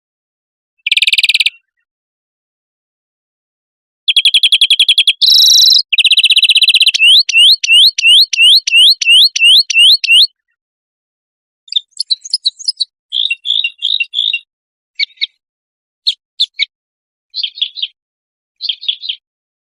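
Edited compilation of songbird song: dense, buzzy trills, then a run of about nine rising whistled notes, then shorter chirping phrases, all separated by dead-silent gaps.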